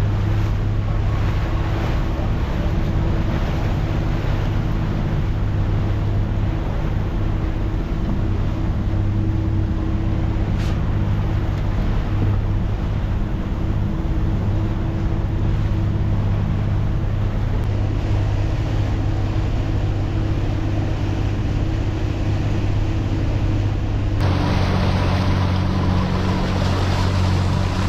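Fishing boat's engine running steadily under way, a constant low hum, with wind on the microphone and water rushing past the hull. The hum changes a little about 24 seconds in.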